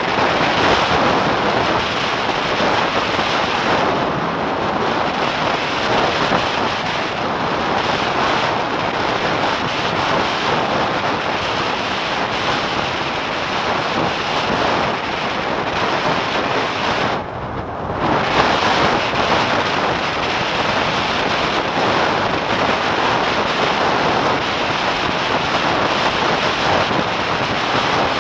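Strong wind buffeting a Garmin Virb XE action camera's microphone while kitesurfing at about 40 km/h, mixed with the board skimming over choppy water. The rush is loud and steady, dipping briefly duller and quieter about 17 seconds in.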